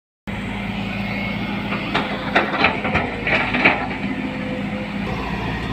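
Volvo crawler excavator's diesel engine running steadily, cutting in abruptly just after the start, with a string of sharp knocks and clatter between about two and four seconds in.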